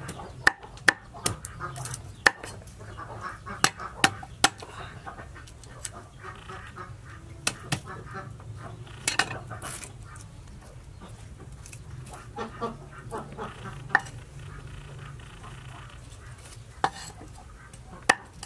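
Garlic cloves being peeled by hand over a wooden chopping board, with a dozen or so sharp clicks and taps of cloves and skins on the board. Domestic fowl call in the background.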